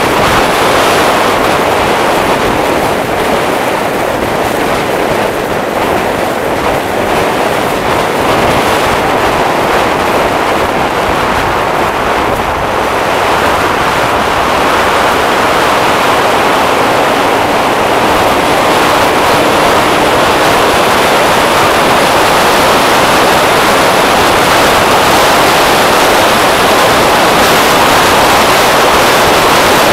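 Motor scooter ridden at cruising speed: a steady, loud rush of wind on the microphone with the scooter's engine running underneath.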